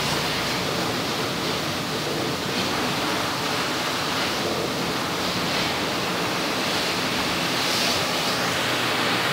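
High-pressure water jet spraying over a dirt bike's frame and wheels: a steady hiss of spray that swells a little as the jet is moved around.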